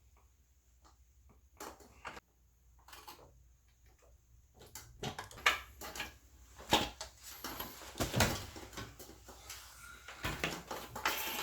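Scattered knocks and clicks of hard objects being handled. They are sparse at first and come thicker and louder from about five seconds in.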